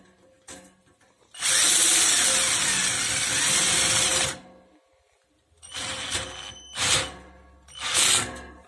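Power drill driving a screw into the clamp on the rim of a floor fan's wire guard: one steady run of about three seconds, then three short bursts.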